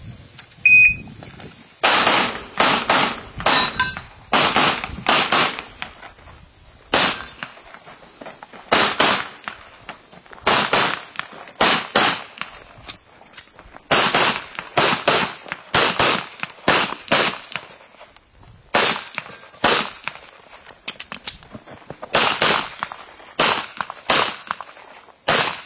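A shot timer beeps once, briefly, at the start signal. A handgun is then fired in rapid strings of shots, mostly quick pairs, with short pauses between groups as the competitor works through an IPSC course of fire.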